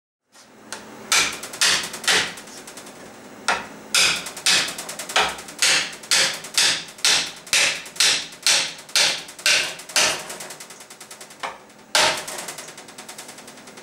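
Hammer blows driving a wooden spoke into the wooden hub of a wagon wheel, sharp knocks at about two strikes a second. There are two short breaks, and a last heavy blow near the end.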